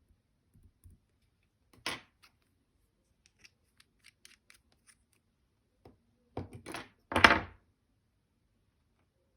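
Short crisp snipping and scraping handling noises: one sharp snip about two seconds in, faint scattered ticks after it, then a louder cluster of scrapes about six and a half to seven and a half seconds in.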